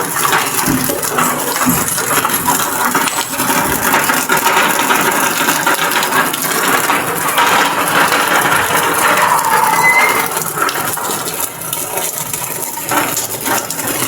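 Heavy typhoon rain pelting down hard, a dense, steady clatter of drops.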